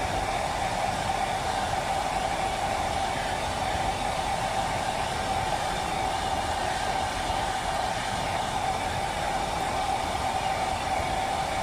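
Hand-held hair dryer running steadily: a continuous rush of blown air with a steady mid-pitched whine through it.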